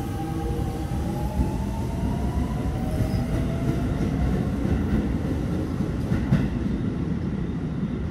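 Keio 8000-series electric commuter train pulling away from the platform: the motor whine climbs in pitch over the first few seconds as it accelerates, over a steady rumble and clatter of wheels on rail.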